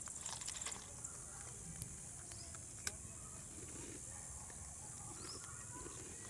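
Parrot chicks making faint calls, with a run of small clicks and scratches near the start and one sharp click about three seconds in.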